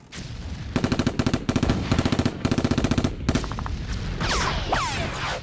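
Several short bursts of automatic gunfire, each a rapid string of shots, followed about four seconds in by a few short whistles falling in pitch.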